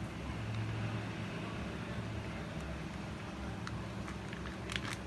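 Steady low background hum, with a few faint crinkles of a plastic bag being handled near the end.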